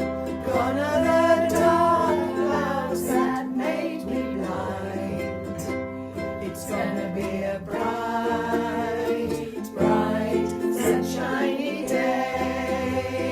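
A song: strummed ukulele chords over a bass line, with a voice singing phrases at intervals.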